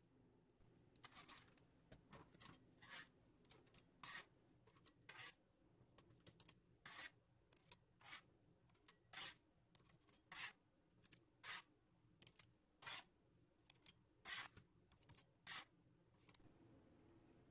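Faint, short scrapes of a metal spatula sliding under baked cookies on a parchment-lined metal baking sheet, one or two a second, stopping near the end.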